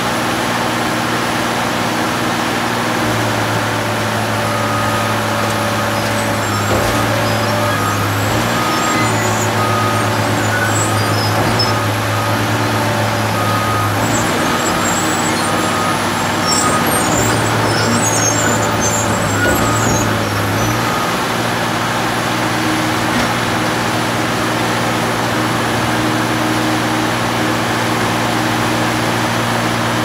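The engine of a 1989 Al-Jon 400 metal baler running steadily and loudly. Its note changes several times as the load on it shifts.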